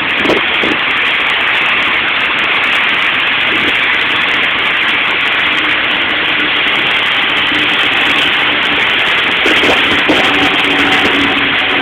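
Typhoon wind and rain making a loud, steady noise without let-up.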